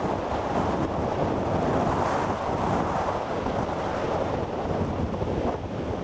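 Heavy storm surf breaking and washing over a rocky outcrop: a continuous rushing of churning water that swells and eases, with wind buffeting the microphone.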